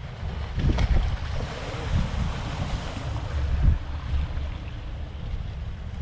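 Sea waves washing and splashing against concrete tetrapods of a breakwater, with a bigger surge of water about a second in, under wind buffeting the microphone in gusts.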